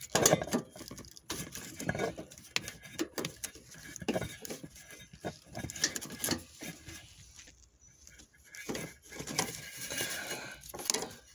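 Gloved hands working plastic wiring-harness connectors loose on a hybrid battery pack: irregular clicks, taps and rustling of plastic and cable, with a quieter stretch about eight seconds in.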